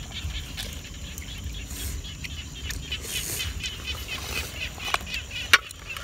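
Cooked snails being sucked from their shells and eaten: small wet slurping and clicking mouth sounds, with two sharp clicks about five seconds in.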